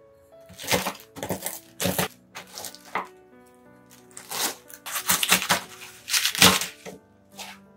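Walnut kernels being crushed with a wooden rolling pin inside a plastic bag on a wooden board: irregular crackling and crunching strokes, with the bag crinkling. Instrumental background music plays underneath.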